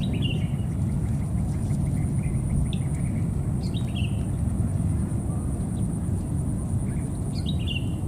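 A steady low rumble of outdoor noise. Over it, short high chirped calls come three times, a few seconds apart, each falling slightly in pitch. A faint steady high whine runs underneath.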